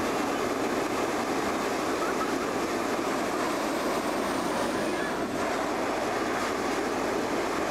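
Hot air balloon's propane burner firing in one long, steady blast, heating the air in the envelope.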